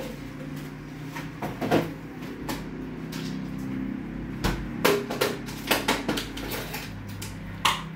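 Kitchen handling sounds: several sharp knocks and clicks as a refrigerator is opened and plastic containers and dishes are taken out and set down on the counter.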